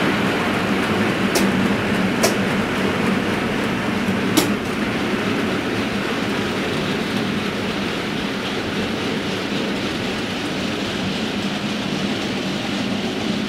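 OO gauge model goods train's wagons rolling along the track, with three sharp clicks in the first few seconds, the loudest about four seconds in, as wheels pass over rail joints or points. The rolling sound eases off slightly as the train moves away.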